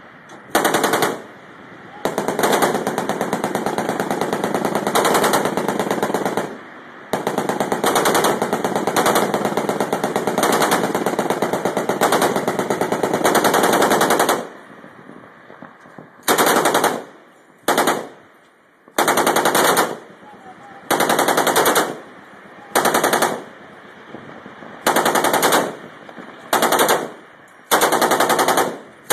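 Automatic gunfire from a navy ship's deck guns. Two long sustained bursts of several seconds each come first, then a string of short bursts a second or two apart.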